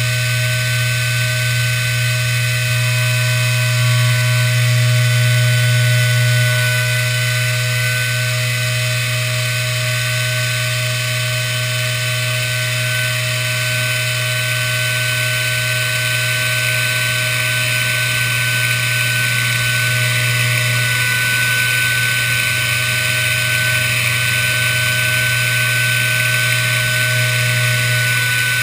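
Hobby CNC router milling a quadcopter arm out of sheet stock, its spindle and axis motors running steadily as the small end mill cuts: a steady whine over a low hum, a little louder a few seconds in.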